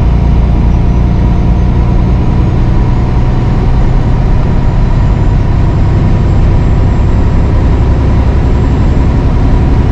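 Semi truck's diesel engine and road noise heard inside the cab while driving: a steady, even drone with a few held hum tones.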